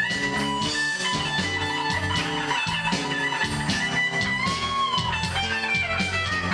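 Band music: an electric guitar lead over bass and a steady drum beat, one guitar note bent up and held about four and a half seconds in.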